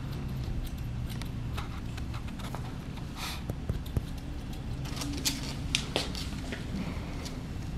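Grooming scissors snipping at a Yorkie puppy's face hair: scattered short, sharp snips and clicks, the loudest few about three to six seconds in, over a steady low hum.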